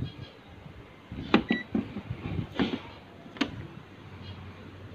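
Several sharp knocks and clatter from handling a power plug and cables at a power strip, with a brief high beep about one and a half seconds in.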